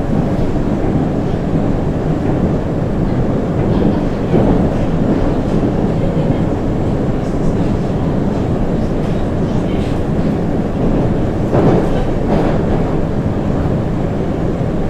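Moscow Metro 81-775/776/777 'Moskva-2020' train running at speed through the tunnel, heard from inside the car: a steady, loud rumble of wheels on rails, with a few louder knocks along the way.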